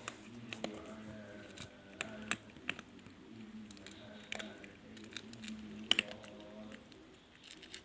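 A cat chewing and crunching its food close to the microphone, with irregular sharp crunches every second or so.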